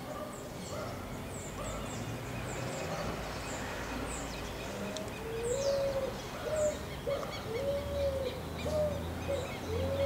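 Wild pigeon cooing: a run of low, arched hooting coos, some drawn out and some short, starting about halfway through. Small birds chirp high and thin throughout.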